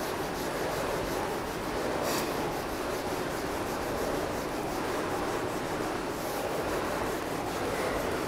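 Whiteboard duster rubbing across a whiteboard, wiping off marker writing in an even, continuous scrubbing.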